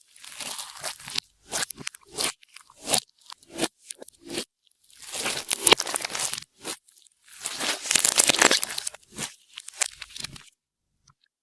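Hands squeezing and kneading clear slime mixed with beads, giving crackling, crunching pops in irregular bursts that stop near the end.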